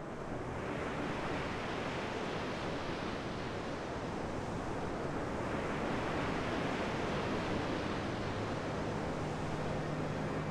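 Rough Baltic Sea surf breaking on a sandy shore: a steady rush of waves, with wind.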